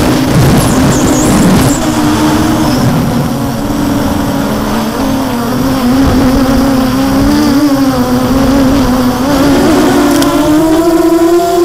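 Quadcopter's brushless motors and HQ 6x4.5 propellers buzzing, as picked up by the onboard camera. The pitch rises and falls with the throttle during acro flying, with a rough rushing noise under it for the first two seconds.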